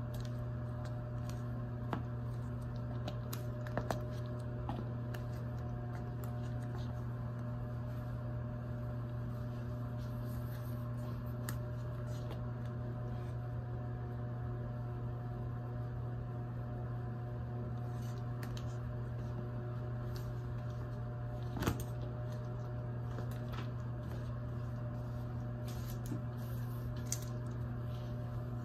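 A steady low hum with a few scattered sharp taps of chunky-heeled platform sandals on a tile floor; the loudest tap comes about two-thirds of the way in.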